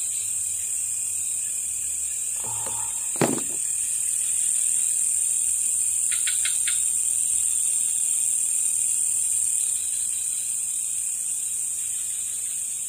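Steady high-pitched chorus of crickets and other night insects. A single sharp knock about three seconds in, and a few quick clicks about six seconds in.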